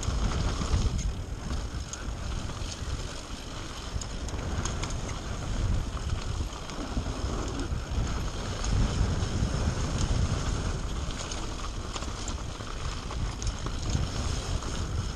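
Mountain bike rolling fast down a dirt downhill trail: wind rushing over the action camera's microphone and tyre rumble on the dirt and gravel, with scattered rattling clicks from the bike.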